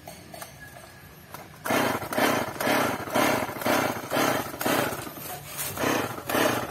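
Stihl MS 881 chainsaw's recoil starter cord being pulled in quick short strokes, about two a second, starting a little under two seconds in. The engine does not catch.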